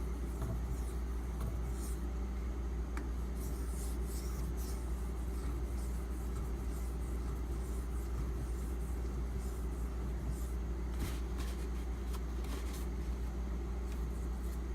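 Steady low hum, with faint scraping strokes of a knife blade on a water stone coming and going, several around two to five seconds in and again around ten to thirteen seconds.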